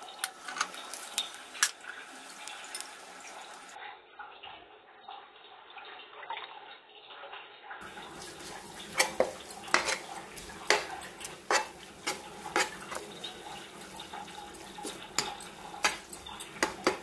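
Wooden spatula stirring a gongura mixture in oil in a frying pan, scraping and knocking against the pan. The knocks get louder and come about once a second from around eight seconds in.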